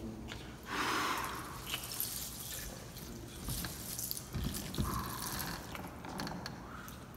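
Liquid from a small glass bottle dripping and splashing, with a rushing splash about a second in and a shorter one later.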